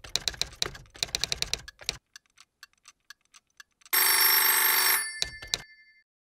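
Rapid typewriter-style key clacks for about two seconds and a few faint ticks, then an old telephone bell rings once for about a second and fades, followed by two clicks.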